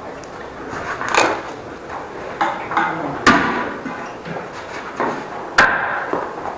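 About four sharp knocks and clatters, echoing off the tiled restroom, as plumbing equipment and fittings are handled around a toilet; the third knock is the loudest.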